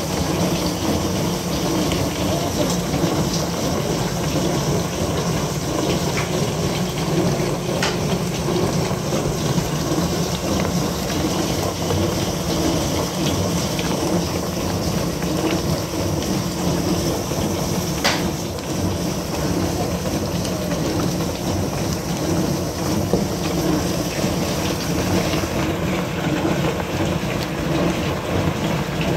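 Dishwasher running: water spraying and splashing inside the tub over a steady pump hum, the high splashing easing about three-quarters of the way through.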